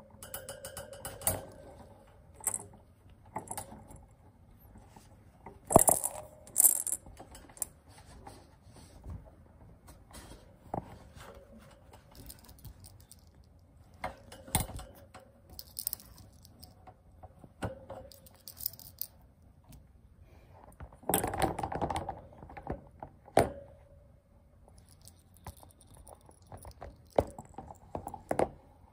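A kitten playing with a feathered toy mouse on a cushion: scattered rustles, scrapes and clicks with bits of light metallic jingling. The busiest, loudest stretches come about six seconds in and again a little past twenty seconds.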